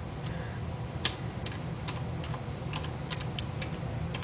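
Keys being tapped on a computer keyboard: a scattering of irregular clicks, more frequent in the second half, over a steady low hum.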